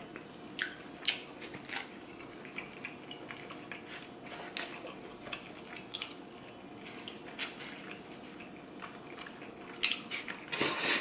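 Fork clicking and scraping against a takeout container, with faint chewing between, then a louder noisy slurp of noodles being sucked in near the end.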